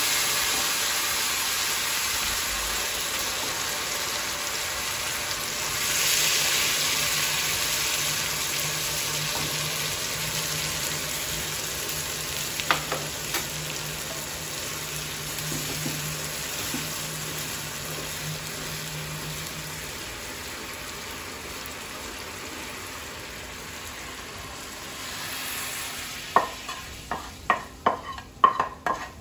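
Hot oil tempering (tadka) with dried red chillies sizzling loudly as a ladle of besan kadhi hits it; the sizzle starts at once and slowly dies down. Near the end comes a quick run of metal knocks and clinks as the pan of tempering is tipped and tapped against the rim of the kadhi pan.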